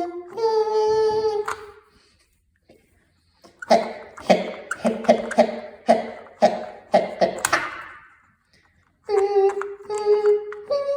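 A voice sings a held note, then makes a run of about eight sharp rhythmic vocal beats, like beatboxing, then sings more held notes near the end.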